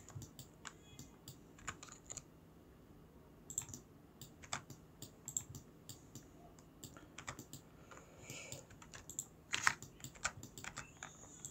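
Faint, irregular computer keyboard keystrokes, scattered singly and in small clusters, over a low steady hum.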